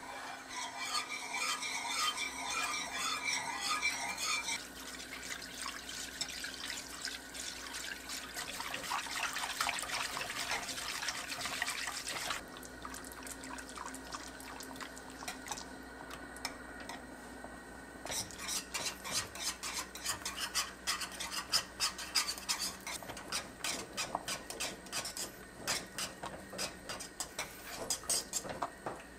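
Small metal whisk beating acorn starch and water in a nonstick frying pan, its wires clicking and scraping against the pan as the mixture thickens. The sound quietens for a few seconds midway, then turns to brisk, rapid clicking in the last third.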